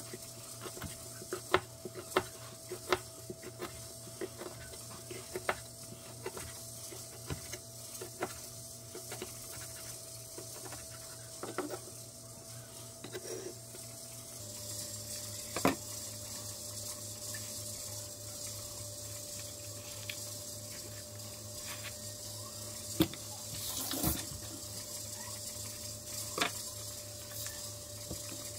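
Kitchen knife slicing squid on a plastic cutting board: a run of sharp, irregular knocks as the blade meets the board. About halfway through they thin out to a few occasional knocks and handling sounds over a steady low hum.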